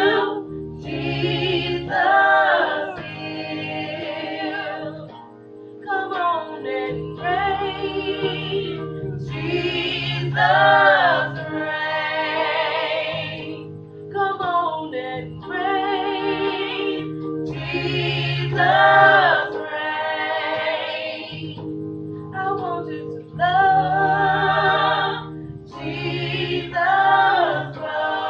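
Gospel vocal group singing live, with female voices in sung phrases of a few seconds each over steady held low accompaniment notes.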